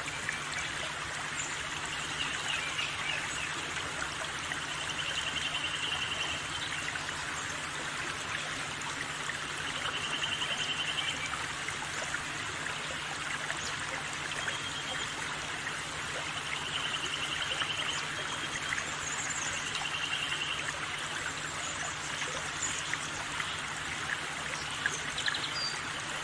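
A stream of water running steadily, with short high trills recurring every few seconds.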